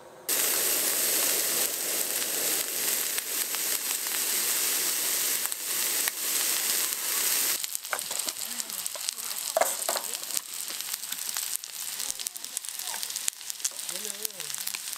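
Pieces of squid sizzling in hot oil in a skillet on a small stove, starting suddenly right at the beginning. The sizzle is loudest in the first half and drops to a quieter hiss with light crackling clicks after about seven and a half seconds.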